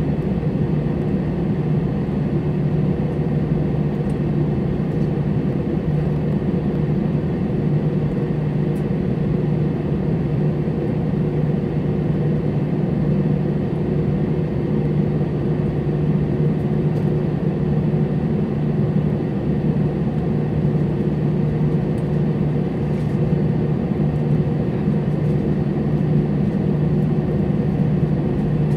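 Airliner cabin noise during taxi: a steady low drone of the engines and cabin air, with a few steady humming tones underneath.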